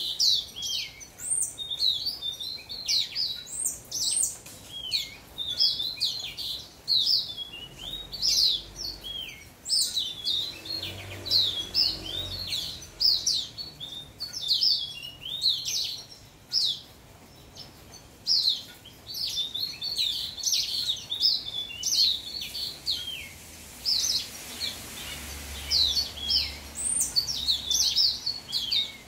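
Young house finch singing: long runs of quick, warbled chirping notes, with a pause of a few seconds about halfway through before the song resumes.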